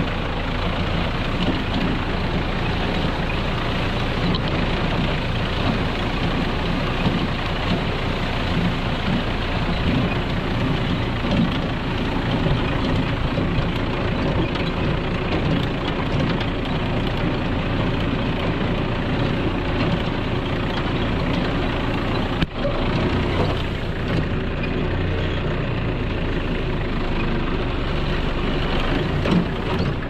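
Compact farm tractor's engine running steadily as it drives through tall grass. The sound drops out for a moment about 22 seconds in.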